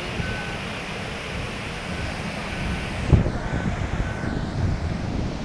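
Muddy flash-flood torrent rushing down a stream channel in spate, a steady rushing of water, with wind buffeting the microphone and a stronger gust about three seconds in.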